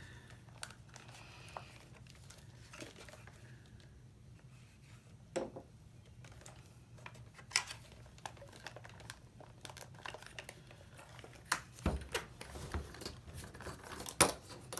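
Scattered small clicks and knocks as the parts of a 1984 video camera are handled and pulled apart, a few sharp ones standing out, over a faint steady low hum.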